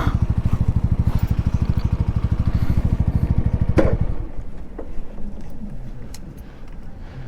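Keeway Superlight 125cc motorcycle engine running at low revs with an even rapid pulse, then stopping about four seconds in, after a single knock.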